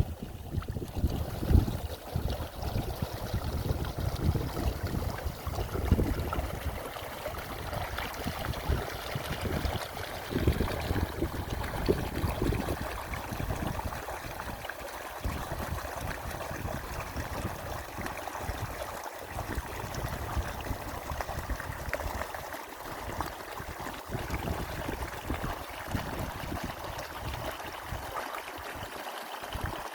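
Waterfall water rushing steadily, with gusts of wind buffeting the microphone, heaviest in the first dozen seconds.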